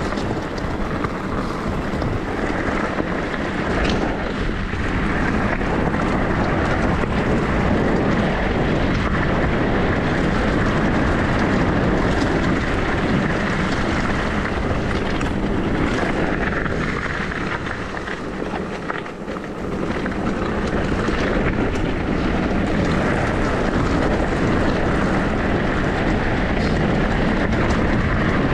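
Wind rushing over the microphone and tyre rumble from an electric mountain bike riding downhill, with a few knocks from bumps in the trail. The noise dips briefly about two-thirds of the way through.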